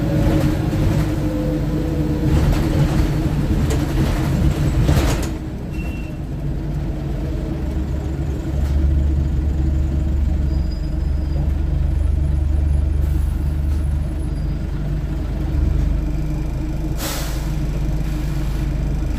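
Scania OmniTown bus heard from inside the saloon while driving: a steady diesel engine and drivetrain rumble, louder for the first five seconds and then easing off. A short hiss of the air brakes comes about three-quarters of the way through.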